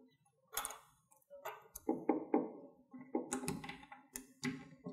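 Light, irregular metal clicks and taps as a screw is fitted by hand through the metal collar of an ice cane tip on a cane, about a dozen small knocks spread unevenly.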